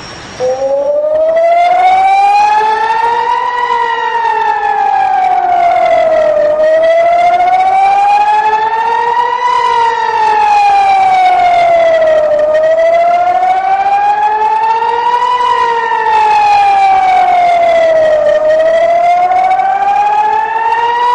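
Civil-defence air-raid siren sounding a slow rising-and-falling wail, loud and steady in level. It starts suddenly about half a second in, and each climb and drop takes about three seconds. The wail is an air-raid warning of incoming rockets or missiles.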